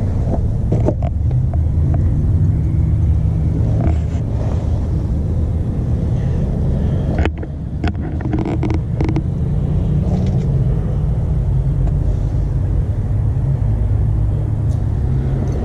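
An engine running steadily with a low rumble, with a few light clicks and knocks over it; the rumble dips briefly about seven seconds in.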